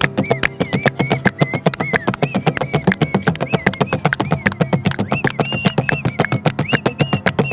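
Fast, steady dambura-style strummed music: an even run of sharp strokes, several a second, over a droning low note, with a high wavering tone bobbing along on top.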